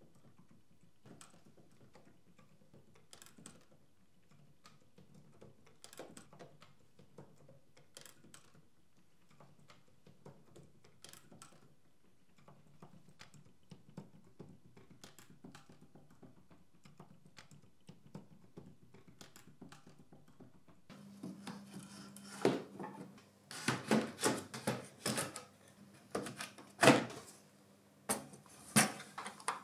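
Faint scattered clicks of hand-tool work on the organ console's wooden stop rail, then, about two-thirds in, a series of louder knocks and clanks as the metal electronics box is handled and fitted into the wooden console, over a steady low hum.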